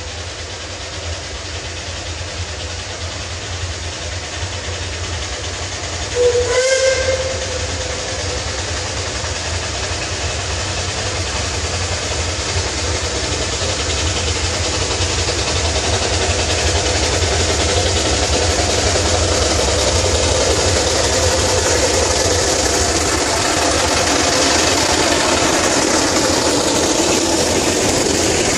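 Steam whistle of Climax geared locomotive 1694 sounding one short blast, about a second long, some six seconds in. Then the locomotive, working up a slight grade with its train, grows steadily louder as it approaches and draws level at the end, with a rising hiss of steam.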